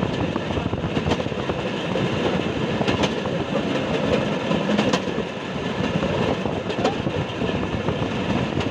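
Steel wheels of a moving rail vehicle running along the track: a steady rumble with a sharp click from the rail joints about every two seconds.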